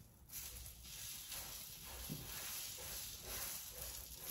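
Butter sizzling on a hot tawa as burger bun halves toast in it, a steady sizzle that starts suddenly about a third of a second in.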